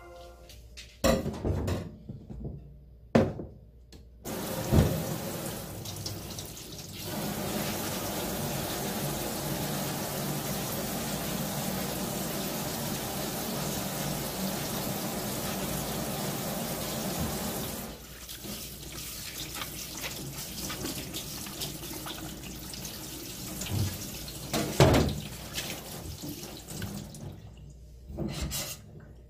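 Water from a kitchen faucet running into a stainless steel sink while an apple is washed under it. The flow starts about four seconds in, after a few clicks, and is steady and strongest for about ten seconds in the middle, then turns to lighter splashing with a few knocks against the sink.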